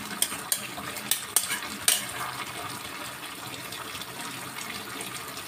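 Metal spoon clinking and scraping against a cooking pot as vegetables are stirred, with about five sharp clicks in the first two seconds. Under it, a steady sizzle from the pinakbet cooking on the stove.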